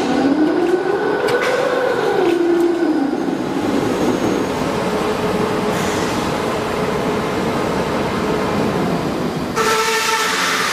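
PV support roll forming machine running, a steel strip passing through its chain-driven forming roller stations: steady mechanical running noise, with a tone that rises and then falls in pitch over the first few seconds. Near the end the sound turns brighter, with a steady higher whine.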